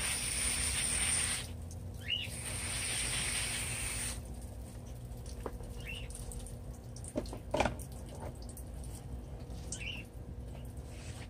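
Water spraying in fine streams onto potted pothos leaves and soil: a steady hiss that breaks briefly, resumes, and stops about four seconds in. A bird chirps a few times, and there are a couple of light knocks about seven and a half seconds in.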